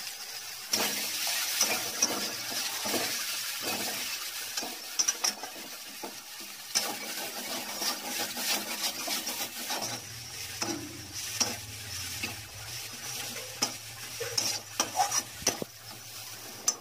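Spice paste sizzling in hot oil in a metal kadai while a metal spatula stirs and scrapes it, with frequent clicks of the spatula against the pan. The masala is being fried down until the oil separates.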